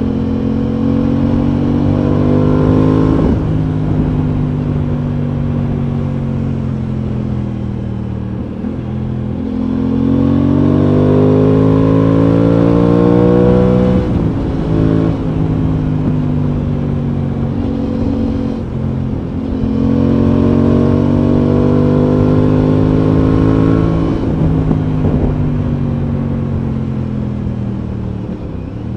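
Aprilia Tuono 660's parallel-twin engine under way. It pulls up through the revs three times, each time with a sharp drop in pitch at a shift or as the throttle closes, and winds down gradually in between.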